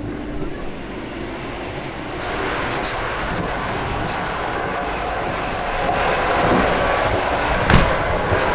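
Running noise of a moving passenger train heard from inside the carriages, a steady rumble and rattle that grows louder about two seconds in and again around six seconds, as the walk nears the gangway between carriages. A sharp click near the end as a carriage door handle is worked.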